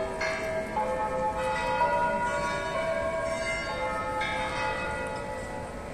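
Church bells ringing: several bells of different pitch struck one after another at uneven intervals, each note ringing on and overlapping the next.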